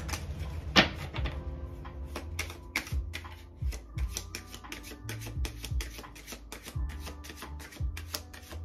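A tarot deck being shuffled by hand: a quick, irregular run of light card clicks and flicks, with soft background music underneath.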